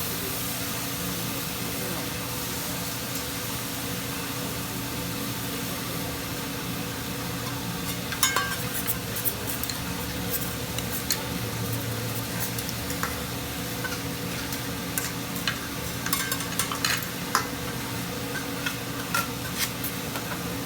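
Hibachi griddle sizzling steadily under a low hum, with scattered clicks and clinks of metal utensils starting about eight seconds in.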